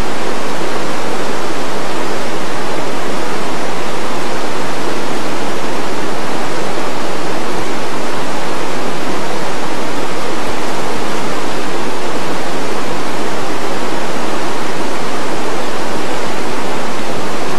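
Rushing river water, a loud, steady roar of fast-flowing current close to the microphone.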